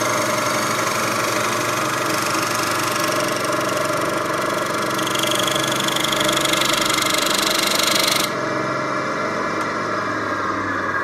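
Lathe running under cut, a steady mechanical whirr with many fixed tones. A high cutting noise rises in pitch over a few seconds and stops abruptly about eight seconds in, leaving the lower running noise of the machine.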